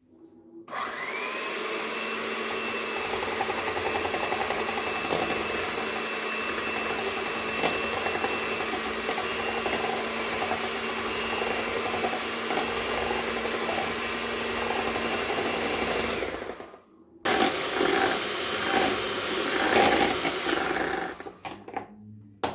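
Small electric mixer beating an egg: the motor spins up, runs steadily for about sixteen seconds, stops briefly, then runs again for a few seconds more.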